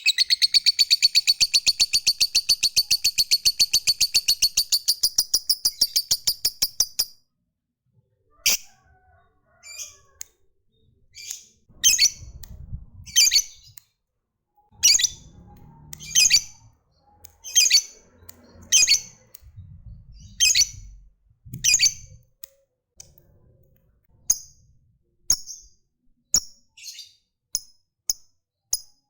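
Lovebird calling: a long, fast, even chatter of high chirps (the ngekek trill) for about seven seconds, then after a short pause separate sharp high calls about one a second, turning quicker and shorter near the end.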